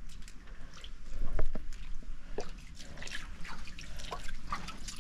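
Boots wading through shallow water, with irregular splashes and drips and one louder splash about a second and a half in.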